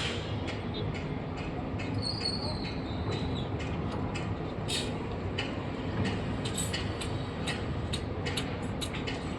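Excavator running steadily, with many sharp clicks and clanks of its working parts and a faint high squeal about two seconds in.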